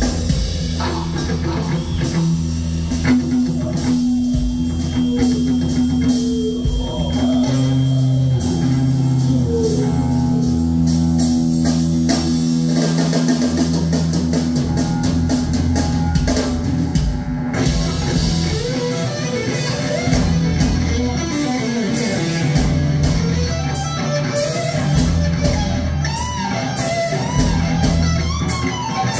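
Live rock band playing: electric guitars over bass guitar and drum kit, with long held bass notes.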